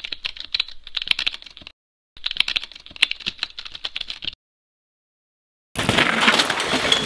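Keyboard typing sound effect: rapid key clicks in two runs of about two seconds each, with a short pause between. Near the end, a steady rush of a mountain bike on a dirt trail starts.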